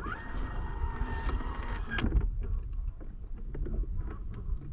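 Bow-mounted electric trolling motor whining: it spins up with a quick rise in pitch, runs steadily for about two seconds, then cuts off.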